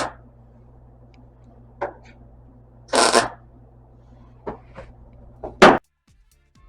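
MIG welder laying two short crackling bursts, each under half a second and about three seconds apart, to fill a pinhole in a welded-in steel floor patch. A steady low hum runs underneath, with a few sharp clicks between the bursts. The sound cuts off abruptly near the end.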